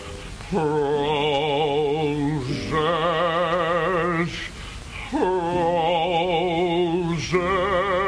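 A man singing the word 'Roses' in long held notes with a wide vibrato: four notes of about one and a half to two seconds each, with short breaks between them, the first starting about half a second in.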